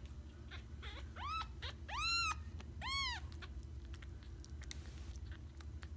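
Five-day-old kitten mewing three times about a second apart, each a thin cry that rises and falls, the middle one loudest. Small clicks follow as it suckles milk from a feeding syringe.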